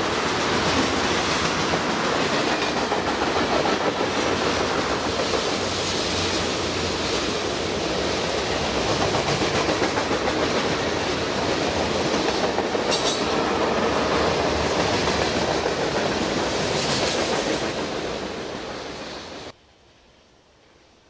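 Norfolk Southern freight train of tank cars and mixed freight cars rolling past at speed: steady noise of steel wheels on the rails, with clacking over the rail joints. It fades near the end, then cuts off suddenly to a faint background.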